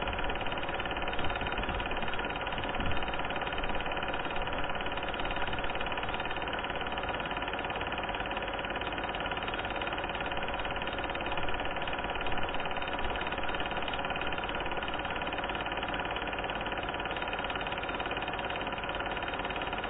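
A steady mechanical drone made up of several held tones, with a few brief swells in the first seconds and again about twelve seconds in. It runs on unchanged through the picture changes.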